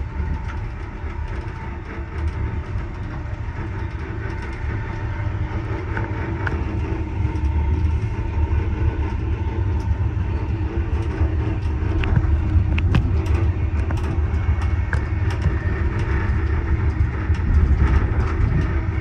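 Amfleet passenger coach running along the track, heard from its rear vestibule: a steady low rumble of wheels on rails that grows gradually louder. A scattering of sharp clicks comes mostly in the second half.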